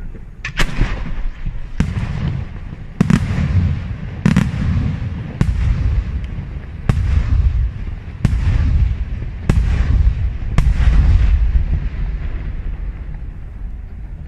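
Aerial firework shells bursting in a regular sequence: nine sharp bangs about one every second and a quarter, each followed by a rolling rumble. The bangs stop about eleven seconds in and the rumble fades away.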